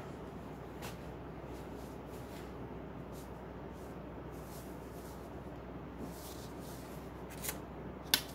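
Faint scratching of a pen writing on paper, in short strokes over a steady low hum. Near the end comes a sharp click as a plastic ruler is set down on the page.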